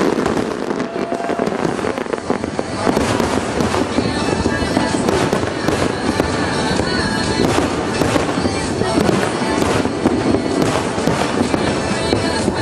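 Aerial fireworks bursting in a continuous barrage: a dense, loud run of bangs and crackle, several bursts a second with no pause.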